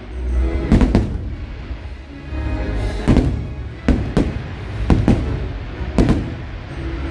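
Fireworks shells bursting overhead in about half a dozen sharp bangs, a few seconds apart and then more quickly, over the show's music playing throughout.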